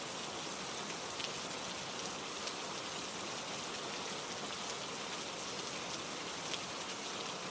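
Steady rainfall, an even hiss with a few faint drop ticks.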